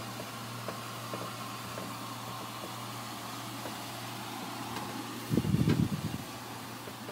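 Steady low machinery hum, with one loud low rumble lasting under a second about five seconds in.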